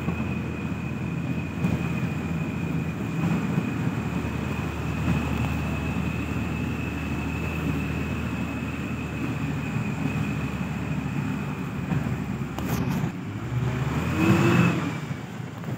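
Engine of a cargo-laden vehicle running steadily as it drives a rough dirt road, heard from its roof, with a thin steady high whine under it. A brief louder surge comes near the end.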